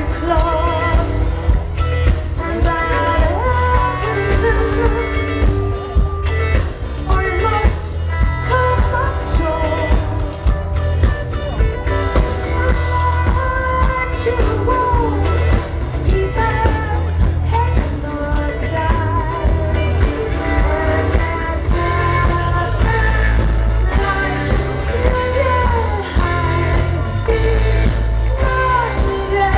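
Live rock band music: drums and bass on a steady dance beat with guitars and keyboards, and a woman singing over it, recorded from among the audience.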